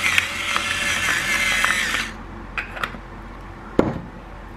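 Salter electric pepper mill grinding black pepper: a steady motor whine that cuts off about two seconds in. After it come a few light clicks and one sharp knock near the end.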